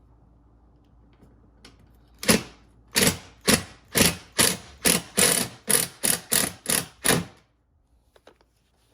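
Hand ratchet wrench being worked back and forth, about a dozen quick ratcheting strokes at roughly two a second, tightening mounting bolts, then stopping a little after seven seconds.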